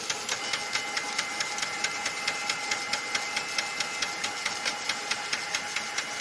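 Lexmark X364dn laser printer running with a rhythmic grinding click, about six a second, over a steady mechanical whine. The noise was traced to a faulty duplex assembly.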